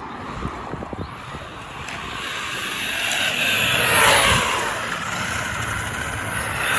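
HAIBOXING 2997a RC car's electric motor whining and its tyres hissing over the ground as it drives, building to a loud pass about four seconds in and coming up again near the end.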